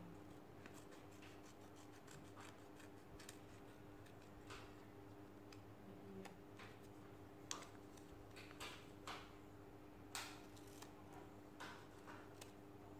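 Small scissors snipping a small strip of paper: a series of quiet, irregular snips, the clearest ones coming between about seven and twelve seconds in.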